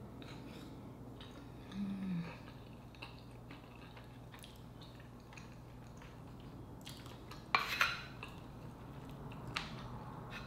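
Quiet eating with faint chewing and mouth clicks, and a short hummed "mm" about two seconds in. Later a wooden spoon knocks sharply against the plate, twice close together and once more near the end.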